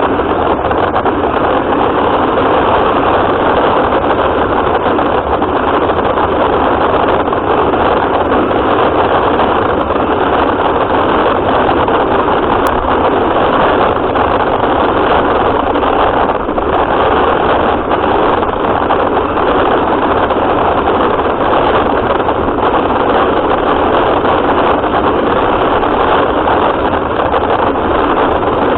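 Running noise of a radio-controlled car picked up by a camera mounted on it: a loud, steady, even noise with no distinct tone and no pauses.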